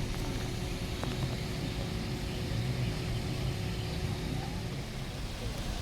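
Steady low rumble of a car driving, heard from inside the cabin, with a faint steady hum that stops about five seconds in.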